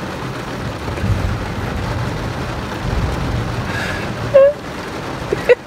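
Heavy rain pattering on the roof and windows of a parked car, over a steady low rumble. About four seconds in comes a woman's short, loud, high-pitched squeal of disgust, and a couple more short squeaky cries follow near the end.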